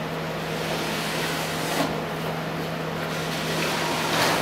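A hand screwdriver driving a screw through an aluminium rail into an MDF frame, scraping as it turns, over a steady low hum, with a small knock about two seconds in and a louder one near the end.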